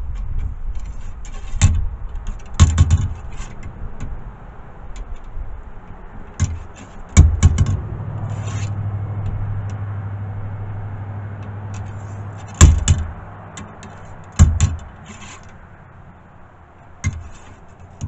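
Steel ramrod working in the barrel of a .50 caliber muzzleloading double rifle: faint scraping strokes and about six sharp knocks a few seconds apart as the rod is pushed down and struck against the barrel.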